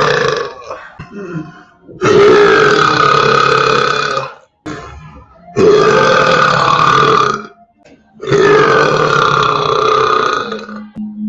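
A person belching loudly: the end of one burp, then three long, drawn-out burps of about two seconds each with short pauses between them.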